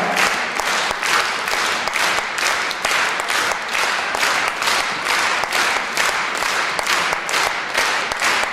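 Audience applauding steadily: a dense, even clapping that neither builds nor dies away.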